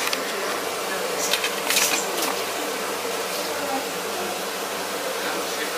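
Steady electric machine hum in a kitchen, with a few short clattering knocks between one and two seconds in.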